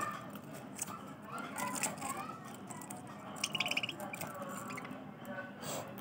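Budgerigars chattering and warbling in short, twisting chirps, with a quick rattling trill about three and a half seconds in.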